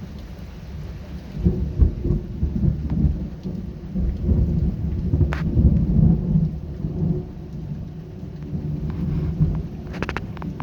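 Thunder rumbling in rolling waves over steady rain, building about a second and a half in and loudest around the middle, with a few sharp ticks near the middle and end.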